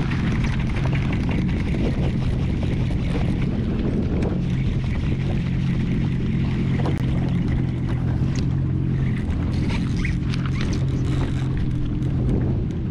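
Jet ski engine running at a steady pitch, with wash of wind and water over it and a few light clicks and knocks in the second half.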